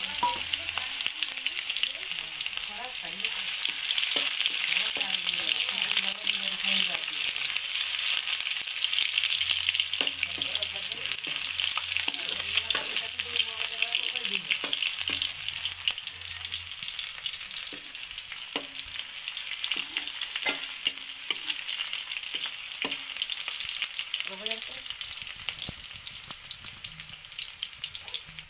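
Sliced onions sizzling in hot oil in an aluminium kadai, with a steel ladle stirring and scraping against the pan now and then. The sizzle softens in the second half.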